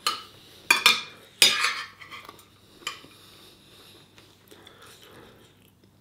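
Metal fork clinking and scraping against a ceramic dinner plate: a few sharp taps in the first two seconds, a lighter one near three seconds, then quiet scraping.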